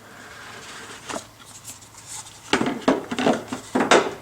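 A box of LED headlight bulbs being opened and its contents handled: a single click about a second in, then a run of loud rustles and clacks of packaging from about two and a half seconds on.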